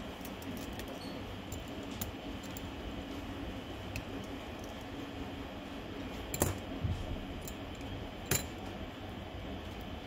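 Small sharp clicks and taps of a screwdriver and fingers on the metal frame and parts of an opened iPhone XS Max, with two louder clicks in the second half, over a steady low hum.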